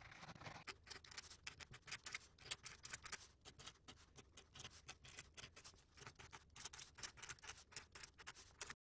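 Faint scratching of felt-tip marker pens drawn across paper in quick strokes, heard as rapid, irregular ticks; it cuts off suddenly near the end.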